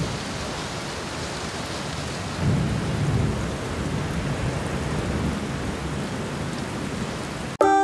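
Steady rain hiss with low rolling thunder rumbles, the rumble swelling about two and a half seconds in. It cuts off abruptly near the end.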